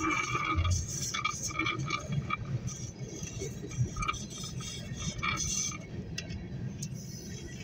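Railroad crossing bell ringing repeatedly, fading in the second half, over the low rumble and clatter of a hopper train's cars rolling past the crossing, heard from inside a car.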